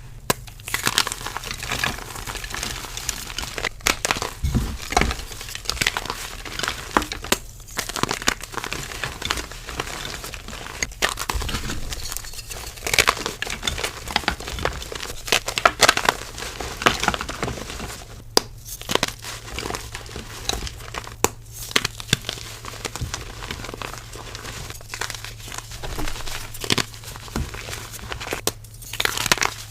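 Soft reformed gym chalk being crumbled and crushed: dense, irregular crunching and crackling, broken by a few short pauses.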